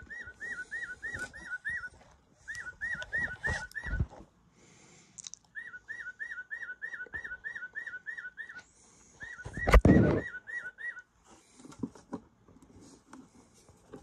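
Singing bird clock's speaker playing a recorded tufted titmouse song: four runs of quickly repeated, clear whistled notes. A loud knock about ten seconds in.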